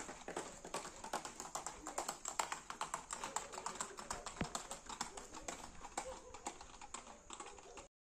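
Hooves of several ridden horses clip-clopping on a concrete road in a quick, irregular run of sharp clacks. The sound cuts off abruptly near the end.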